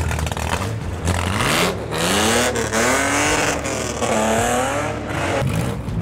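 Monster truck engine revving up and down about three times as the truck drives, with a rush of noise under the engine.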